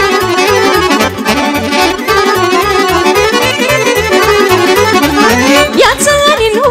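Instrumental break of Romanian hora-style dance music from a live band: an accordion carries the melody over a steady, quick beat in the bass. Near the end, a fast rising glide leads back into the singing.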